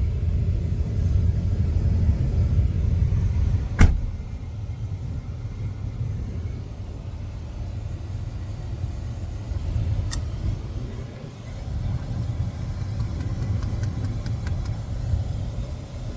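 Steady low rumble of a car heard from inside the cabin, with a sharp click about four seconds in and a fainter one about six seconds later.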